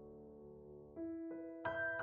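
Soft background piano music: a held chord fades, then new notes are struck about halfway through.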